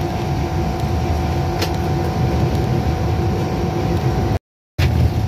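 GE U20 diesel-electric locomotive running steadily while rolling slowly, a low rumble with a steady hum, heard from the front of the locomotive. There is one sharp click about a second and a half in, and the sound cuts out briefly near the end.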